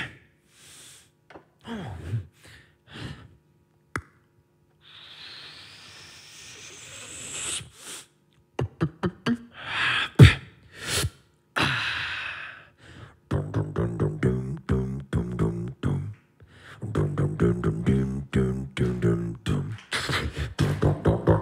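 Beatboxing: scattered mouth clicks and pops and a long rising hiss. About two-thirds of the way in, these give way to a fast, steady beat with a hummed bass line under it.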